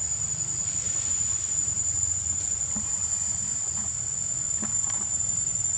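Insects droning: one steady high-pitched whine that does not change, over a low rumble, with a few faint short sounds near the end.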